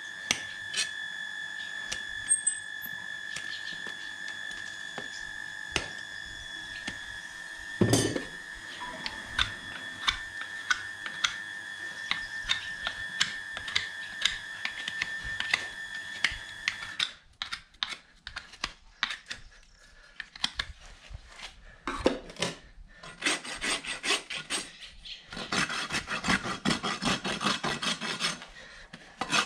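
Hoof work on a horse's hoof: short scraping clicks of a hoof knife paring the sole under a steady high whine, with one loud knock about eight seconds in. After the whine stops, a farrier's rasp files the hoof in quick, rhythmic strokes near the end.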